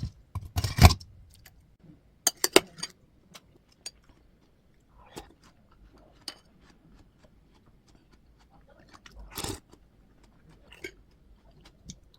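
A person eating: scattered crunching bites and chewing with small clicks, louder around a second in, two and a half seconds in and near nine and a half seconds.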